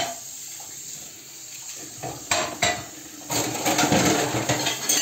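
Metal ladle clinking twice against the pan, then sugar syrup being ladled and poured over hot baked tel kadayıf with a wet splashing rush.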